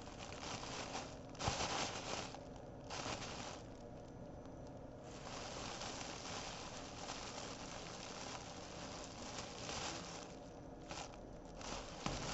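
Rustling, crinkling noises in bursts: two short ones about a second and a half and three seconds in, then a longer stretch of about five seconds.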